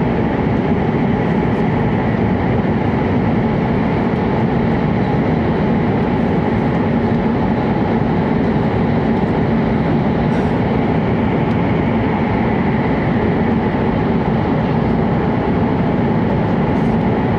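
Steady running noise heard inside an E7-series Shinkansen carriage: an even, unbroken rumble of the train on the rails with a faint low hum.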